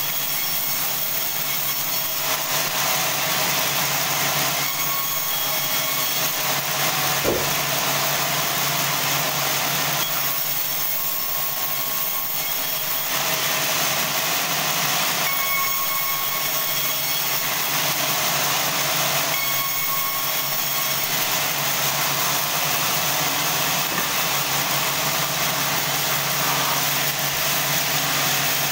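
Band sawmill running and sawing a large log, a loud, steady machine noise whose tone shifts a few times, with one sharp knock about seven seconds in.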